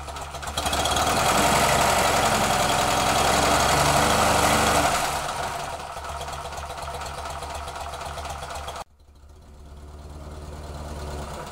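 Fiat 126p's air-cooled two-cylinder engine running on a test stand: it idles, is revved up by hand at the throttle about half a second in and held high for about four seconds, then drops back to a steady idle. Near the end the sound breaks off suddenly and picks up again at idle.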